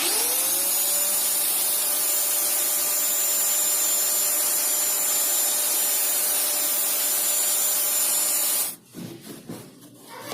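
Angle grinder motor switching on, spinning up over about half a second to a steady high whine with a dense rushing noise, then cutting off suddenly near the end. Scattered light taps follow.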